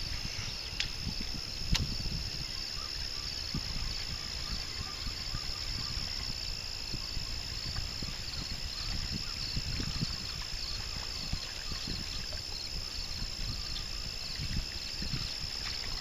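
Outdoor shoreline ambience: wind rumbling on the microphone, with a steady high-pitched whine and a few faint clicks.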